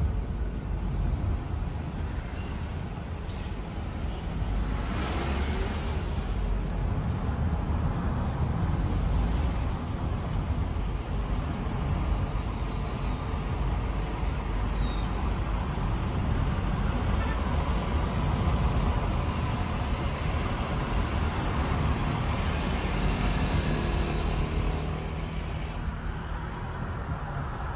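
Car driving, heard from inside its cabin: a steady rumble of engine and tyre noise that swells briefly a couple of times.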